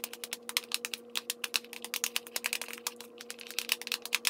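Metal spoon clacking and scraping against a plastic mixing bowl in rapid, irregular clicks as cold macaroni is stirred together with hummus.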